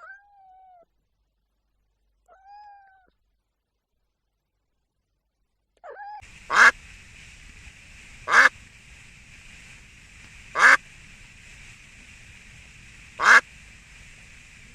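Two short cat meows, then a duck quacking four times, a couple of seconds apart, over a steady background hiss.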